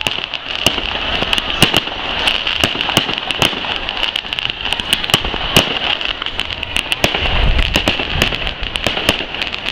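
Fireworks display: a rapid, irregular run of bangs and crackles over a steady high hiss, with a low rumble swelling about seven seconds in.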